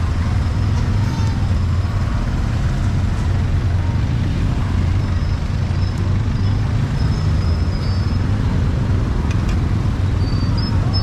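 Street ambience: a steady low rumble of road traffic, with faint high squeaks or tones near the end.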